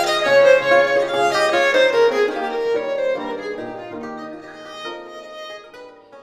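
Violin music played over the pictures, a melody of clear held notes that thins out and gradually fades away over the second half.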